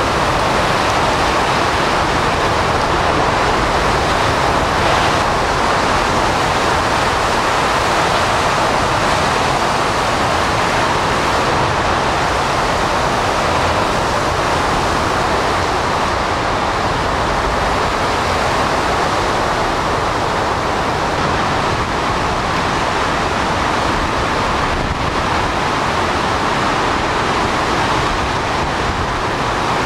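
Hurricane Katrina's eyewall winds blowing with wind-driven rain: a loud, unbroken rush of noise that stays steady throughout.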